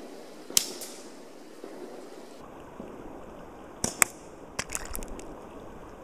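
A natural-fork slingshot fired: one sharp snap, the loudest sound, about half a second in. A little past halfway come two sharp cracks a fraction of a second apart, then a brief patter of small clicks, as the shot strikes at the target boulder. The steady rush of the creek runs underneath.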